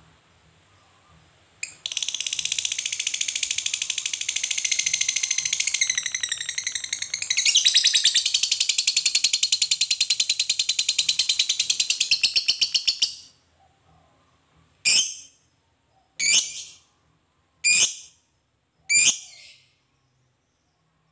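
Lovebird ngekek: a long, rapid, continuous high-pitched chattering trill lasting about eleven seconds, its pitch shifting partway through, followed by four short shrill calls a little over a second apart.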